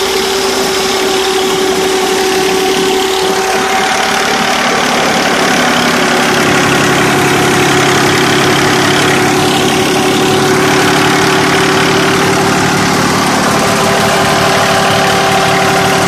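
Massey Ferguson 240 tractor's three-cylinder diesel engine running steadily close up. It gets a little louder and deeper about six seconds in.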